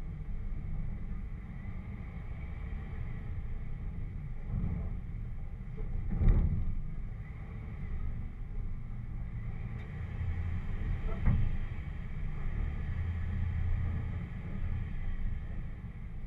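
Jeep engine running under a low steady rumble as it crawls along a rough, muddy off-road trail. Two sharp thumps come about 6 and 11 seconds in as the vehicle jolts over bumps, and the first is the loudest.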